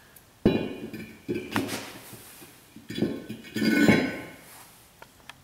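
Steel rear axle shaft pulled from a 2004 Ford F-150 clanking as it is set down on its flanged end on the concrete floor and stood upright: sharp metallic knocks about half a second in and again just after a second, then louder clanks with short metallic ringing around three to four seconds in.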